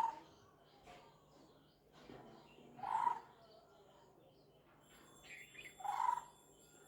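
A lineated barbet calling: a low, mellow note repeated three times, about three seconds apart. Fainter, higher bird chirps sound between the calls, and a steady high insect trill comes in over the last couple of seconds.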